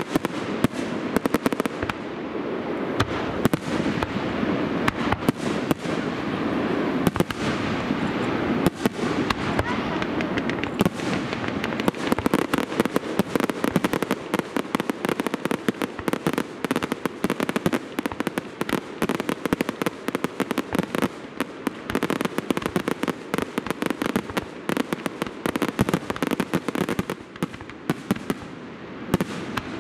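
Fireworks going off in rapid succession: dense crackling and popping with sharper bangs among it, thickest through the middle and later part.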